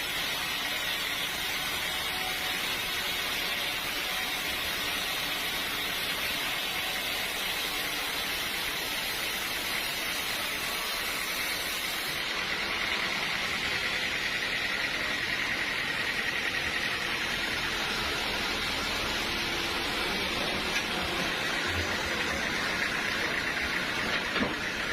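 Sawmill machinery running with a steady hiss and faint underlying hum, with no distinct impacts.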